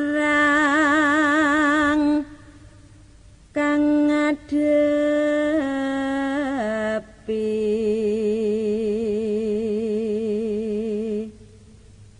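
Background music of slow, chant-like solo singing. A single voice holds long notes with a wide, wavering vibrato, in a few phrases with short pauses between them, the last note held for about four seconds.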